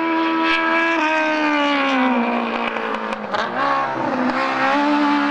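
Rally car engine at high revs, dropping in pitch as the car slows for a bend, dipping briefly about three seconds in, then rising again as it accelerates away.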